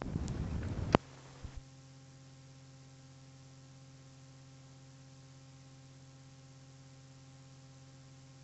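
Steady low electrical hum. In the first second there is a burst of rustling noise that ends in a sharp click.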